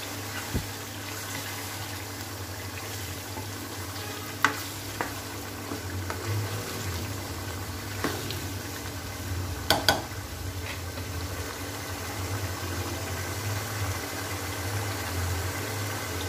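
Beef chunks sizzling and bubbling in their own released juices with ginger-garlic paste in a karahi, the liquid cooking down. A spatula stirs and knocks against the pan now and then, sharpest in a pair of knocks about ten seconds in, over a steady low hum.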